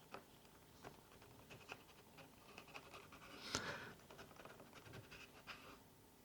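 Faint scratching and light ticks of an opening tool being worked against the edge of an iPad mini 4's glued-down screen, with one louder scrape about three and a half seconds in.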